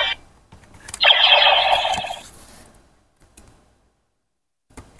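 An electronic sound effect from a bootleg CSM Decadriver toy belt's built-in speaker. It starts with a click about a second in, lasts about a second and a half and fades out. Small plastic clicks from handling the buckle follow near the end.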